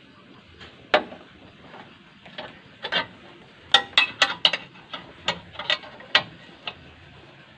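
Sharp metallic clinks and clanks as a thin steel reinforcing bar is worked on the pins of a homemade rebar bending jig with a hand bending lever, forming a stirrup. The clinks come singly at first, then in a quick run of five or six about four seconds in, and a few more after that.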